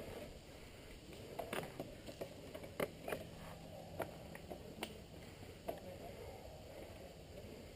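Faint, irregular clicks and scuffs from a mountain biker standing with the bike on leafy dirt, about a dozen over several seconds, over a quiet outdoor background.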